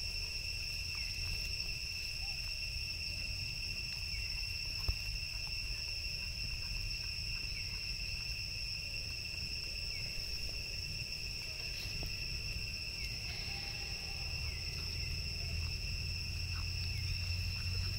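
Steady insect drone, one unbroken high tone with a fainter one above it, over a low rumble; a single click about five seconds in.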